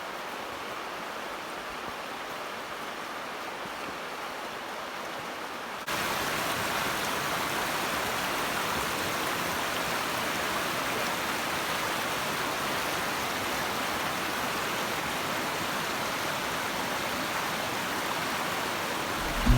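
Waterfall: a steady rush of falling water, getting louder about six seconds in.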